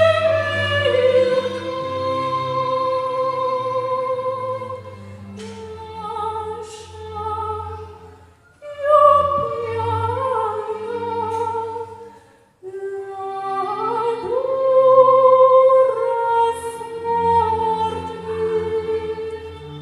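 Operatic singing: a lyric voice holding long notes with vibrato, with a steady lower accompaniment beneath. The music breaks off briefly twice, at about eight and twelve and a half seconds.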